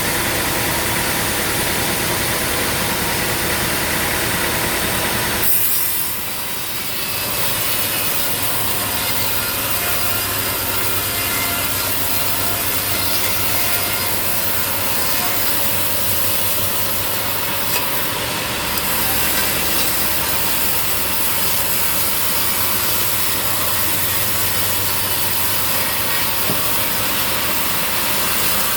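Sawmill blade cutting lengthwise through a large log, a steady loud rasping whine with the saw's engine running underneath; it eases briefly about six seconds in, then carries on.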